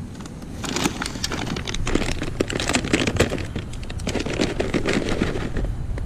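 Thin plastic shopping bag crinkling and rustling as hands dig through it, starting about half a second in and stopping just before the end.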